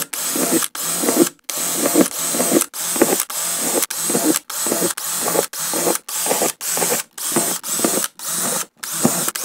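Cordless drill with a small bit boring drain holes through the bottom of a plastic storage tote. It runs in short bursts of about half a second each, one after another at nearly two a second, with brief stops between holes.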